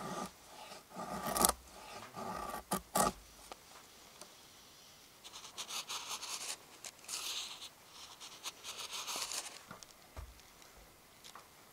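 Rustling and scraping of gear being handled. Several sharp clicks come in the first three seconds, then a run of hissing rustles.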